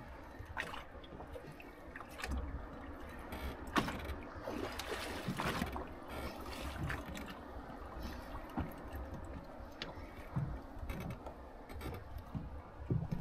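Water lapping and splashing against a small boat's hull, over a steady low rumble, with scattered sharp clicks.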